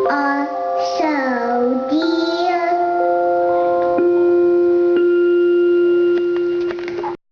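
A child singing: a short phrase that swoops down and back up in pitch, then one long held note that cuts off suddenly near the end.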